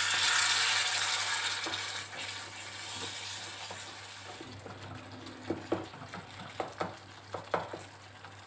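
A thick tomato-and-spice masala is sizzling in a stainless-steel kadai while a wooden spatula stirs it. The sizzle is loud at first and dies down over the first few seconds. In the second half come scattered taps and scrapes of the spatula against the pan. At this stage the tomatoes have broken down and the spices are fully fried.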